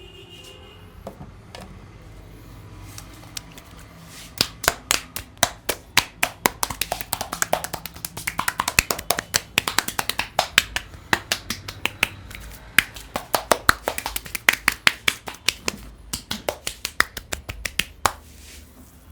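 Percussive head massage by a barber's hands: a fast, rhythmic run of sharp hand-made cracks, about five a second. The run starts about four seconds in, pauses briefly twice, and stops shortly before the end.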